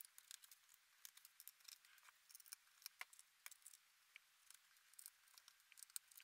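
Faint, scattered small clicks and ticks of a screwdriver working the tiny screws of a MacBook Pro's aluminium bottom cover, with a slightly sharper click about three seconds in.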